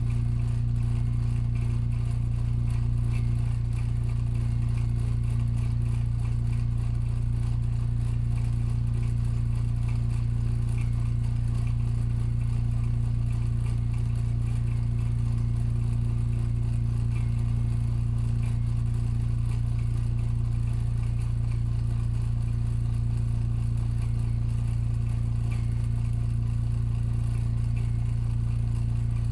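Vintage cast-iron Aircraft-brand wall fan running steadily on its twin-coil AC induction motor with a sleeve bearing. It gives a strong, even low electrical hum.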